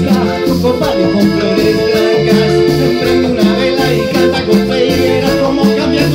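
Live salsa band playing a steady groove, with congas, drum kit and electric guitar under held chords.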